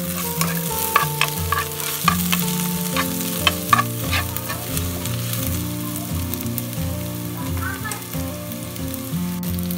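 Sliced onions and green chillies sizzling as they sauté in hot ghee in a nonstick pot. A plastic spatula stirs them, giving scattered clicks and scrapes against the pan.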